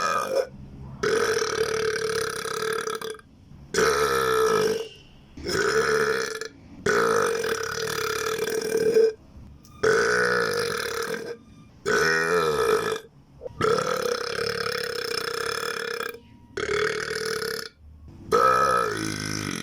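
A person burping over and over: about nine long, drawn-out burps in a row, each lasting one to two seconds at a steady pitch, with short pauses between them.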